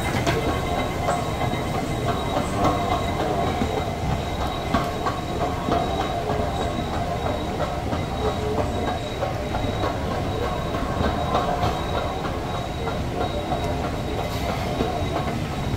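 Airport automated people mover train running: a steady rumble with a few steady whining tones and scattered light clicks.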